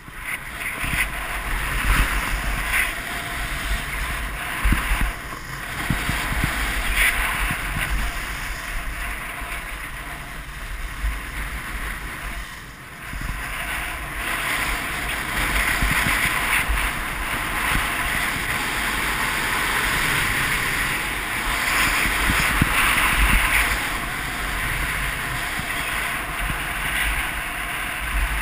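Wind buffeting a GoPro's microphone mixed with the hiss and scrape of edges carving packed snow on a fast downhill run, swelling and easing with each turn, with a steady low rumble and occasional thumps from bumps.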